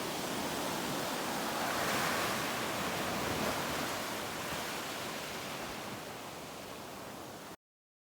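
Steady rush of water, swelling about two seconds in, then fading and cutting off suddenly near the end.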